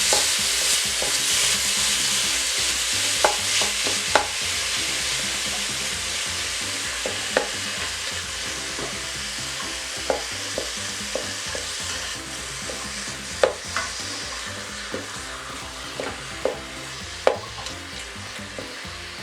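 Ground beef sizzling as it fries in an Instant Pot on the high sauté setting, the sizzle slowly getting quieter, while a utensil taps and scrapes against the pot at irregular moments as the meat is broken up.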